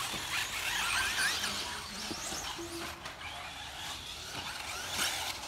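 Several electric off-road RC buggies racing, their motors whining, rising and falling in pitch as they speed up and slow down.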